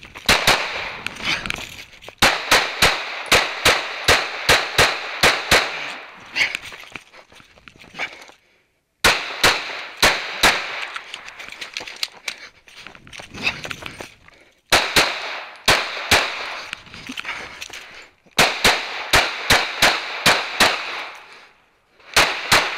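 Glock 19 9mm pistol firing rapid strings of shots, each shot followed by an echoing tail. The strings are broken by several short pauses where the firing stops.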